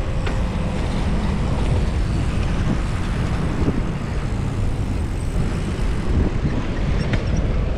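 Steady low rumble of wind buffeting an action camera's microphone on a moving bicycle, mixed with road noise.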